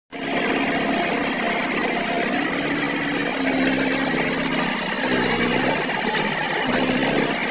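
Mahindra Yuvo Tech 275 DI tractor's three-cylinder diesel engine running hard under heavy load, its pitch rising and falling as the tractor strains to haul a trolley with its wheels bogged down in deep mud.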